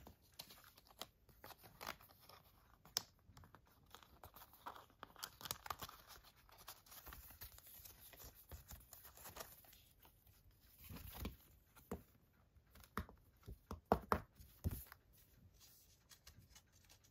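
Faint handling of thin paper cards and packaging: intermittent rustling and crinkling with scattered light taps, a denser rustle about eleven seconds in and a few sharper taps soon after.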